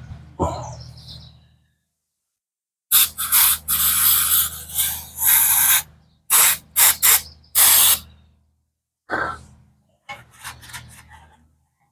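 Aerosol can sprayed in hissing bursts into an ATV engine's removed side cover to blow it clean and dry: one long spray of about three seconds, then four short blasts, then a few fainter ones near the end.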